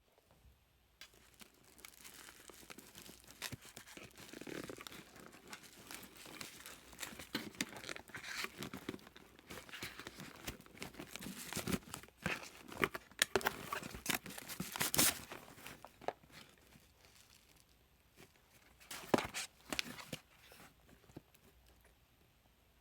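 Packaging torn open and crinkled by hand: a run of tearing and crackling rustles from about a second in, easing off after about sixteen seconds, with one more short burst near the end.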